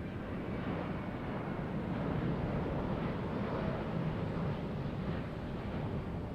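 Jet noise from a Boeing 787-9's twin turbofan engines as the airliner flies past, a broad rush that swells to its loudest two or three seconds in and then eases off.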